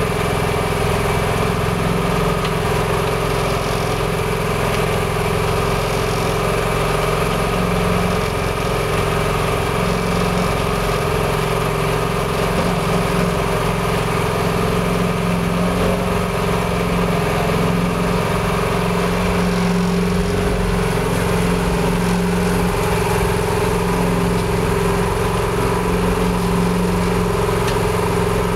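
Engine of a towable drum plaster mixer running steadily at a constant speed, a continuous even hum that does not change.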